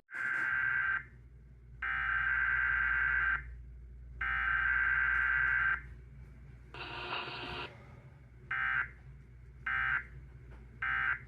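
Emergency Alert System digital data tones (SAME bursts) from a broadcast receiver: three long warbling data bursts, a short burst of wider noise, then three short bursts about a second apart, the pattern of an end-of-message signal. A steady low hum lies underneath.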